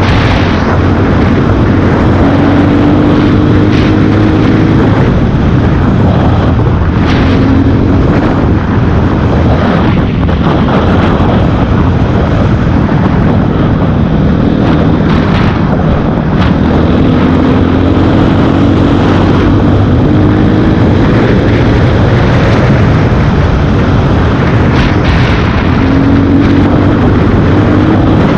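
Honda CRF230F's air-cooled single-cylinder four-stroke engine running under way, its pitch rising several times as the revs climb, with wind noise on the microphone.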